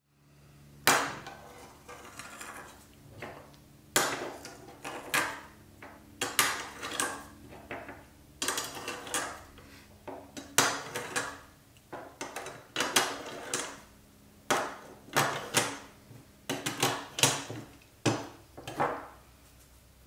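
Nickel-plated steel sockets clinking and clacking as they are picked up, set down on the bench and pushed onto the clips of a metal socket rail. The sharp metal knocks come one or two at a time in an irregular run, each ringing briefly.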